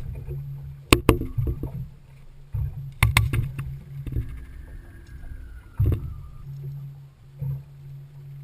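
Small fishing boat at sea: water sloshing against the hull over a low steady hum, with a few sharp knocks on the boat.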